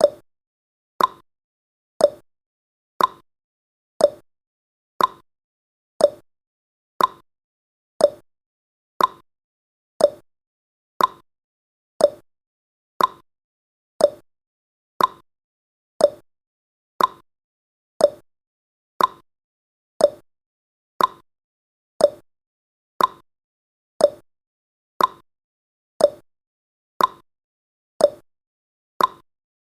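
Countdown timer's clock-tick sound effect: a short, sharp tick once every second, evenly spaced, with silence between ticks.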